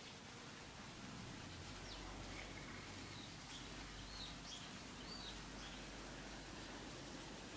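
Faint outdoor ambience with several short bird chirps between about two and five and a half seconds in, over a low steady rumble that comes in about one and a half seconds in.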